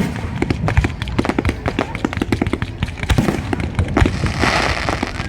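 Fireworks going off: a rapid, irregular string of pops, crackles and low thuds with no pause, swelling into a hissing crackle a little past four seconds in.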